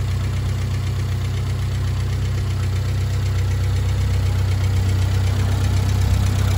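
A Fordson E83W's 1172 cc side-valve four-cylinder engine idling steadily and slowly getting a little louder. Its noisy tappet has just been adjusted, so the tappet tick is now slight.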